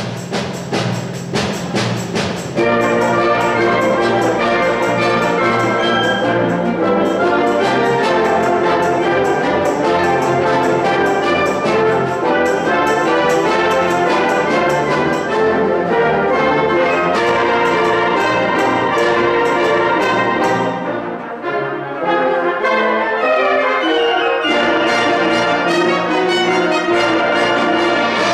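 Symphonic wind band playing full brass-led chords with percussion. It opens with separate accented hits before the whole band comes in about two and a half seconds in, eases briefly about three-quarters of the way through, then builds again over quick repeated strikes near the end.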